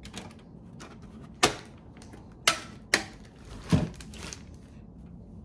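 Hard plastic clacks as a plastic airflow shroud is handled and fitted inside a desktop computer case: four sharp knocks spread over a few seconds.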